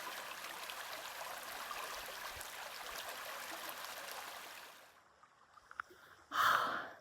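Small stream running with a steady trickling rush of water, which cuts off suddenly about two-thirds of the way in. Near the end comes a brief loud burst of noise.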